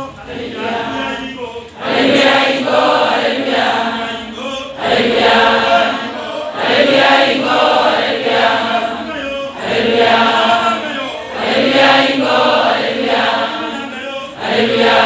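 A group of voices singing a chant-like hymn in short phrases that restart every two to three seconds.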